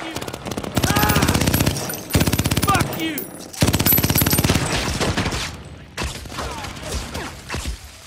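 Rapid automatic gunfire from rifles and a machine gun in long bursts, thinning out after about five and a half seconds to scattered single shots.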